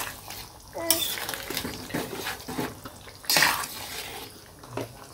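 Metal spatula stirring and scraping through a wok of watery curry with pieces of fried fish, the liquid sloshing. The loudest scrapes come about a second in and again just after three seconds.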